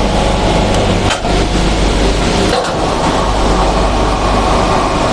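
10-ton welding positioner's electric drives running as the table rotates and tilts together, a steady mechanical hum. Two short knocks come through it, about one and two and a half seconds in.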